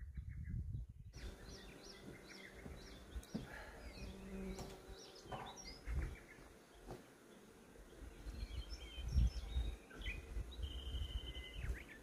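Several wild birds singing and calling in mountain forest: scattered quick chirps and whistled notes, with a fast trill near the end. A low rumble runs underneath.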